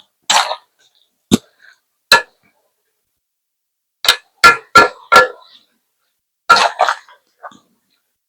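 A small dog barking in short, sharp yaps. There are single barks early on, a quick run of four at about three a second midway, and a pair near the end.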